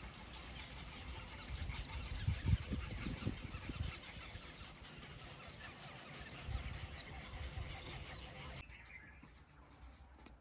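Many birds calling at once in a dense, busy chorus over a low rumble. The calling drops away abruptly near the end.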